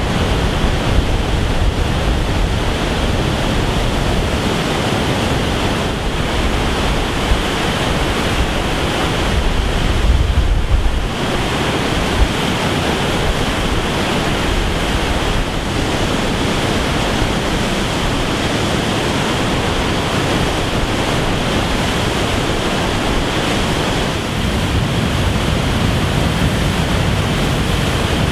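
Floodwater pouring over a dam spillway and churning through the rocky channel below: a steady, loud rush of whitewater, the dam overflowing after heavy rain. Wind buffets the microphone, most strongly about ten seconds in.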